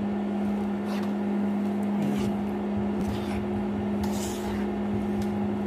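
A spoon stirring thick, sticky black-rice biko in a nonstick pan: wet scraping and squelching strokes about once a second, the strongest about four seconds in. Under it runs a steady low electric hum.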